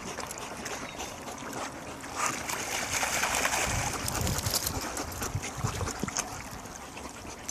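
Water splashing and churning as animals swim, louder and busier from about two seconds in.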